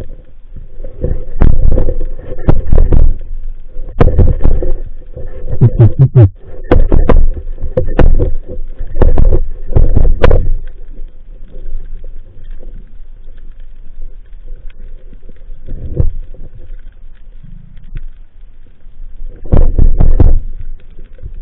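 Underwater noise picked up by a speargun-mounted action camera: repeated muffled rumbling surges of water pushing against the housing as the gun and diver move, with a few sharp clicks. The surges come close together at first, ease off through the middle, and return strongly near the end, over a faint steady hum.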